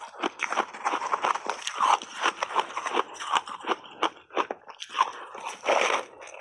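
Crushed frozen mixed ice coated in matcha powder being chewed and crunched, a dense irregular run of sharp crunches close to a clip-on microphone. A fresh big bite into the ice comes near the end.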